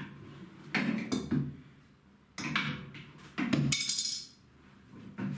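Metal clinks and knocks from a steel adjustable wrench working the levelling feet of a laser cutter's cabinet. About two-thirds of the way in the wrench is set down on the concrete floor with a bright metallic clatter and ring.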